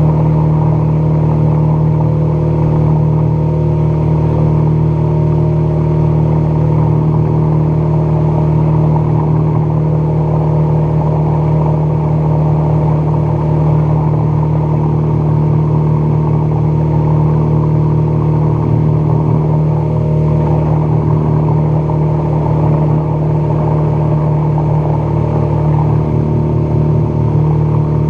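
Outboard motor running steadily at speed, pushing an aluminium fishing boat across open water, with an even drone that holds one pitch.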